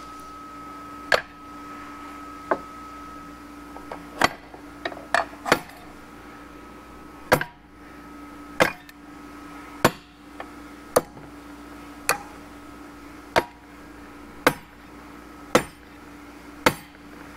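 Repeated sharp metal-on-metal knocks, about one a second, as a stuck drum in a burnt-out GM 4L80E automatic transmission is jarred to break it loose. The rebuilder takes the parts to be held by melted plastic or a center support fused by overheating.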